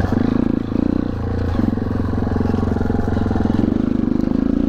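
Dirt bike engine running under throttle, with two short dips in the revs in the first two seconds and a slight rise in revs near the end.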